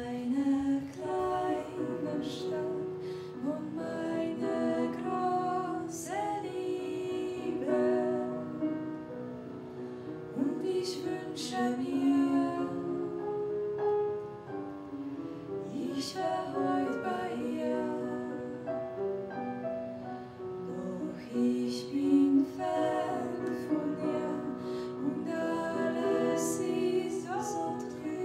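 Two women singing a 1920s-style song together in close harmony, with piano accompaniment.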